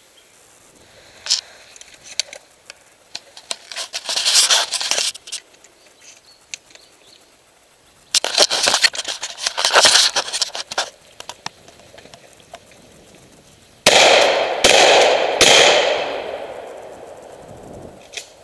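Three loud gunshots in quick succession, each followed by a long fading echo. Earlier, two spells of dense crackling and rattling.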